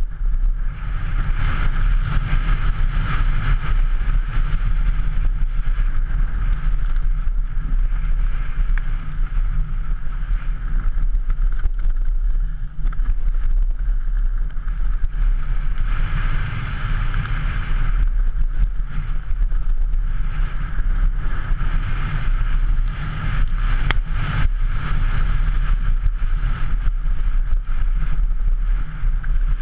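Wind buffeting the camera's microphone on a fast downhill mountain-bike descent, with the bike rattling and its tyres crunching over a loose rocky track, and many short knocks and clatters from rocks and suspension.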